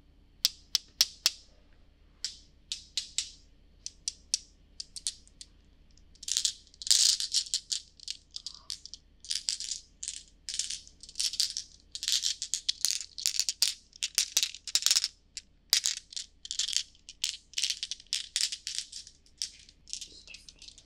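Glass marbles clinking against each other as they are shaken and rolled in cupped hands close to a binaural microphone. A few sharp separate clicks come first, then from about six seconds in there are dense clattering bursts.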